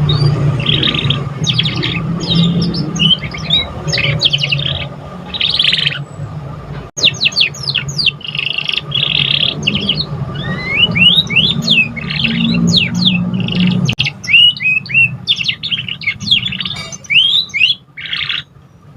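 Young domestic canary singing a varied, unfinished juvenile song: fast runs of chirps, trills and rising whistles with short pauses between phrases. A low hum runs beneath the song until about two-thirds of the way through.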